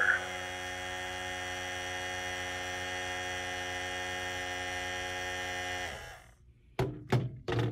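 Toy laser tag blaster's vibration motor buzzing steadily for about six seconds, then stopping: the blaster signalling "game over", that the player's lives are used up. Two short clicks follow near the end.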